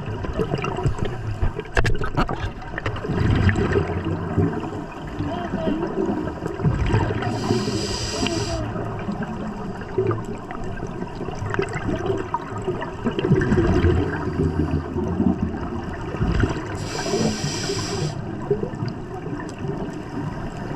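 Water sloshing and bubbling, with two short bursts of hiss about eight and seventeen seconds in.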